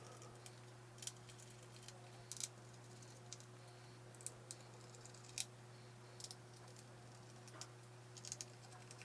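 Faint, scattered small clicks of a screwdriver and small laptop case screws being handled and set down, about a dozen over the stretch, over a steady low hum.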